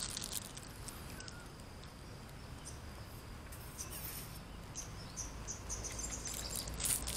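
Birds chirping and insects buzzing in trees and grass, with scattered short high chirps over a steady high hiss.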